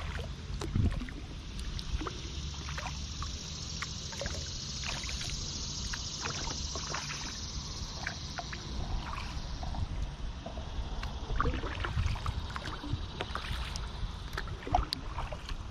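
Kayak paddle strokes beside a Wilderness Systems Tsunami 120 sea kayak: scattered small splashes and water drips with light trickling, over a steady low rumble.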